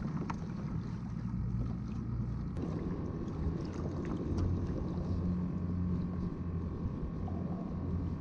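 Wind buffeting the microphone on open water, a steady low rumble, heard from a kayak.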